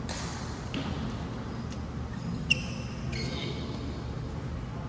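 Badminton rally: a sharp racket-on-shuttlecock hit about halfway through, the loudest sound, with short high squeaks of court shoes on the hall floor just after it and a few fainter hits.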